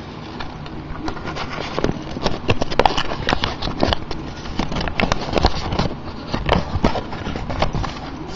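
Irregular clicking and rustling of hands rummaging through slips while drawing a raffle name.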